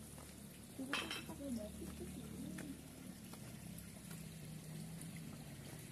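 Steady faint hiss of water trickling into a small garden pond, with faint distant voices about a second in.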